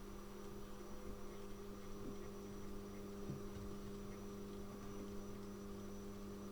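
Model locomotive's small electric motor humming steadily as it crawls slowly in reverse.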